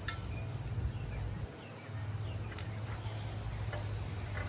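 Steady low hum, with faint clicks of small parts being handled and a few short, falling bird chirps.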